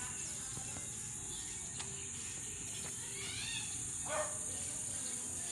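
Steady high-pitched trilling of an insect chorus, with a couple of brief calls over it about three and four seconds in.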